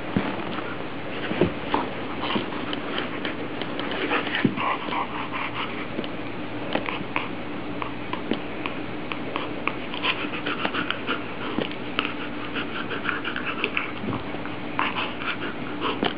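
A German Shepherd and a puppy play-fighting: short high yips and whimpers, busiest in the second half, mixed with many small clicks and scuffs of mouthing and pawing.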